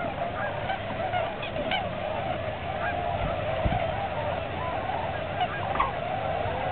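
A large flock of tundra swans calling together: a steady chorus of many overlapping calls, with single higher calls standing out here and there.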